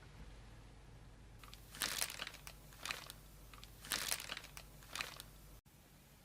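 Packaging crinkling and rustling as it is handled and unwrapped, in four or five short clusters of rustles about a second apart.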